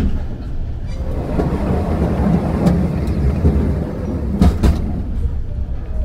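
Funicular cable car running down its track, the wheels rumbling and clattering on the rails, with two sharp clunks about four and a half seconds in as it comes into the lower station.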